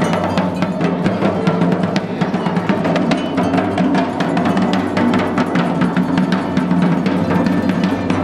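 Large double-headed Sicilian festival drum (tamburo) beaten in a fast, unbroken rhythm of strikes.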